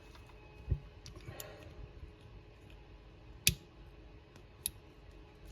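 A few small, sharp clicks of Lego plastic parts being handled and snapped together, spaced a second or more apart, the loudest about three and a half seconds in.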